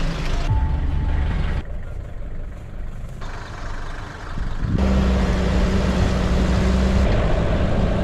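Short clips of four-wheel-drive vehicle engines running, cut together with abrupt changes; from about halfway through, a loud steady engine note from a 4WD driving up a gravel track.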